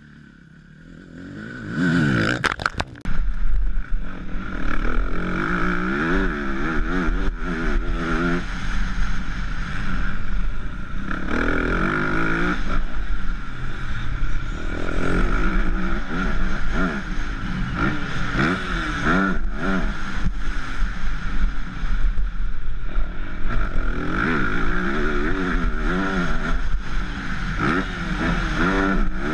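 Motocross bike engine revving up and down over and over as it is ridden around a dirt track, heard close from a camera mounted on the bike. The first two seconds are quieter, then it runs loud over a steady low rumble.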